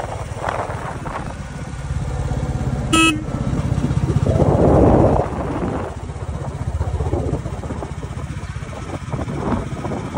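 Royal Enfield Classic 350's single-cylinder engine running at cruising speed with its low, steady thump, under rushing road and wind noise. A single short horn beep sounds about three seconds in, and a louder rush of noise swells for about a second a little later.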